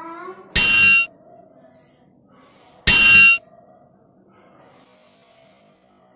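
Two metallic clang sound effects, each a bright ringing strike of about half a second with several clear tones, about two seconds apart. They mark the cardboard toy hammer's blows against the paper shield, which could not ring like this themselves.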